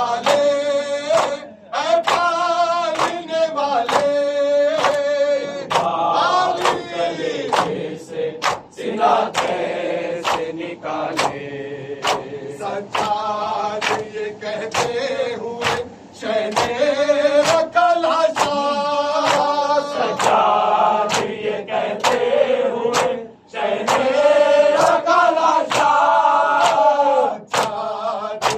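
A noha chanted by a group of men in unison, with matam: hands slapping on chests in a steady beat, slightly more than once a second.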